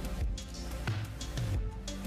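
Background music with a steady beat: a kick drum about every two-thirds of a second under bass and sustained synth tones.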